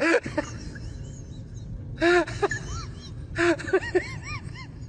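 Women in a crowd letting out short high-pitched squeals, a cluster about two seconds in and another about a second and a half later, over a low crowd murmur.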